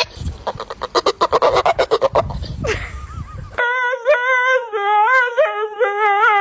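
A quick run of short rhythmic huffs, about eight a second, then a dog's drawn-out, wavering whining howl. The howl holds a high pitch that bends up and down for about three and a half seconds.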